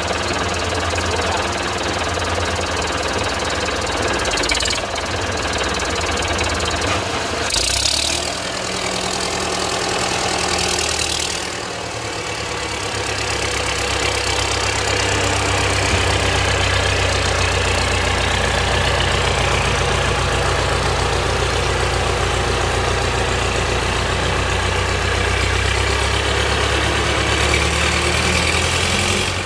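Small gasoline engine of a Norwood LM29 portable sawmill running steadily. It dips briefly about twelve seconds in, then picks back up.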